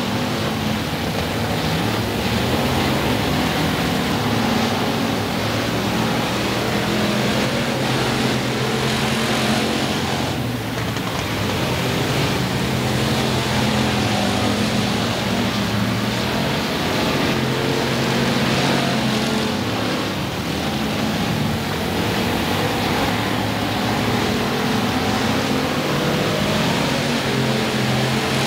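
Dirt-track stock cars' engines running steadily as the cars lap the oval, several engine notes overlapping with little change in pitch.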